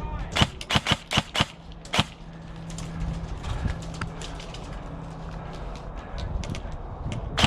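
Airsoft gun firing about six quick sharp shots in the first two seconds, then fainter scattered shots and one more sharp shot near the end.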